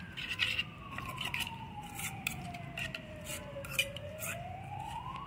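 A metal spoon scraping and clinking irregularly against a steel bowl as thick coriander chutney is stirred. Under it a siren wails, its pitch sliding slowly down for about four seconds and then climbing again near the end.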